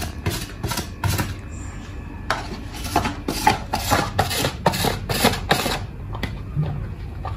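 A peeled cucumber being pushed back and forth over the blade of a handheld plastic slicer, in quick rasping strokes about three a second. The strokes pause briefly a little after one second in, resume, and thin out near the end.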